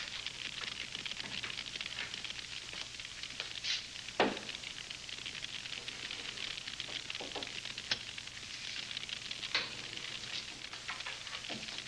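Crackling hiss of a worn old film soundtrack, with scattered clicks and a few louder knocks, the loudest about four seconds in.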